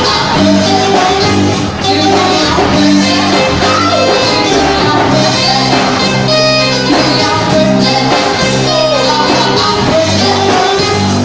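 Live band playing loud amplified pop-rock music, with electric guitar, drum kit and keyboard.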